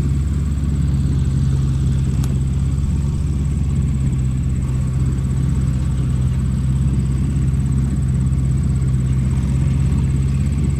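Diesel engines of a JCB backhoe loader and a tractor running steadily close by, a low even rumble that does not rise or fall as the backhoe digs and swings its bucket.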